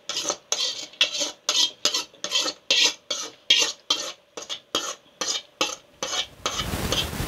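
Metal spoon scraping tempered vegetable masala out of a small steel kadai, in quick regular strokes about three a second. Near the end a steady rushing hiss takes over.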